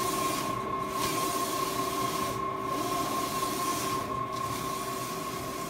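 Garros RT-1801 wide-format printer running and printing: a steady hiss with a constant whine, the hiss dipping briefly at even intervals about every two seconds as the print carriage sweeps back and forth.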